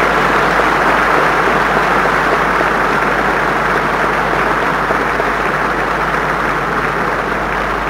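A large audience applauding, a dense steady clapping that tapers slightly near the end.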